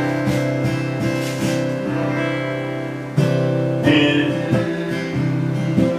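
Acoustic guitar strumming slow chords, each left to ring, with fresh strums at the start, about three seconds in, again a second later, and near the end.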